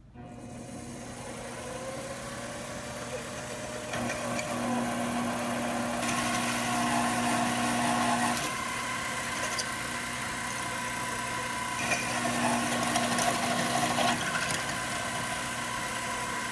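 Mini lathe running as a twist drill in the spinning chuck is fed into a steel blank clamped in the tool post. The motor hum builds over the first couple of seconds. A steady tone from the cut comes in about four seconds in and again about twelve seconds in.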